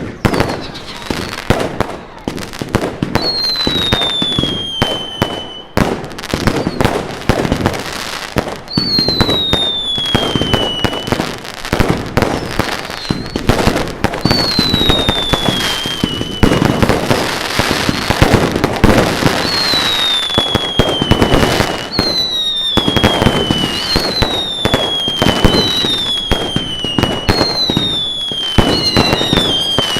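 Fireworks going off in a dense barrage of bangs and crackles, with about nine whistling fireworks, each a whistle falling in pitch for about two seconds, coming in quicker succession in the second half.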